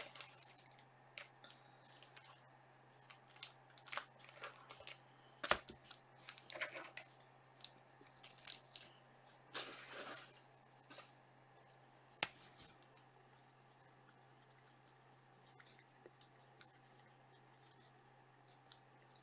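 Faint handling of trading cards and their wrappers on a table: scattered light clicks and short rustles for the first dozen seconds, with the sharpest click about twelve seconds in, then only a steady low hum.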